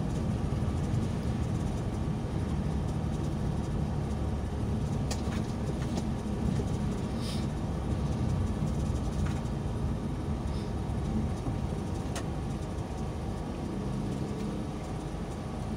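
Steady low rumble of a car's engine and tyres on wet concrete road, heard from inside the moving car, with a few faint ticks.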